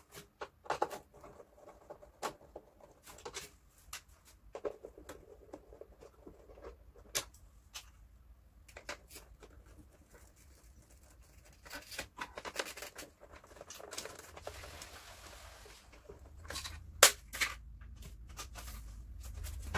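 A screwdriver and hands working on the plastic casing of a Daikin wall-mounted aircon indoor unit as its screws are taken out to free the drain pan: irregular light clicks and taps. There is a brief rustling hiss about three quarters of the way through and a sharper click soon after.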